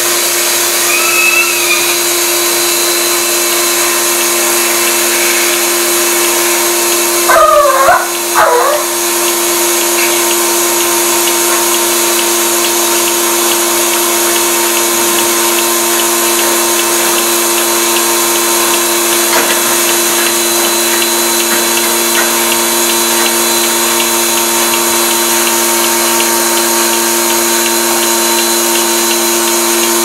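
Milking machine running on a dairy cow with a steady vacuum hiss and hum while its teat cups are attached to the udder. Two short squeals that rise and fall in pitch come about eight seconds in.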